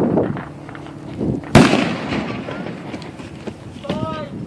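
A fireworks shell fired close by from a steel mortar: one sharp, loud boom about a second and a half in, with smaller pops before and after it.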